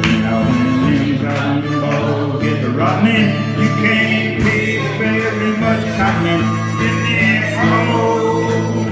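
Acoustic guitar strumming a steady country rhythm while a harmonica plays an instrumental break over it, with wavering, bent reed notes.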